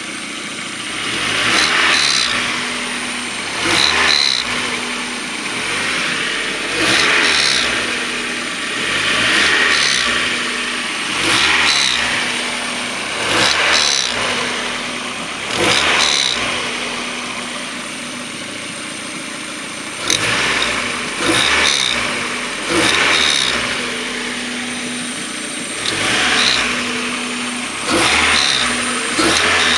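1994 Mazda Miata's four-cylinder engine being blipped again and again, each rev falling back toward idle, with a lull of a few seconds about two-thirds of the way through. As the rpm drops it makes a rotating noise, which the owner places at the back of the intake side of the head and no longer thinks is the cam angle sensor.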